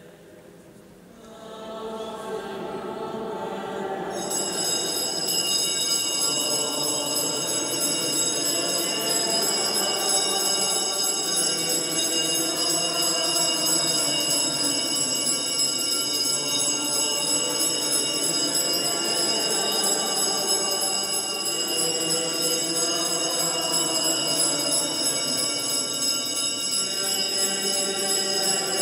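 Church congregation singing a slow hymn, starting softly in the first couple of seconds. From about four seconds in, a continuous high ringing of hand-held altar bells runs over the singing without a break.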